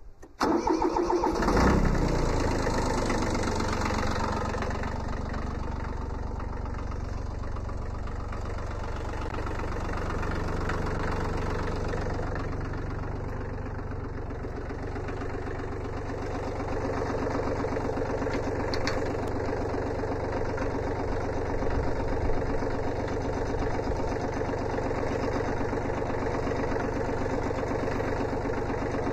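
Kubota B7100's small three-cylinder diesel being cranked and catching about a second in, then settling into a steady idle.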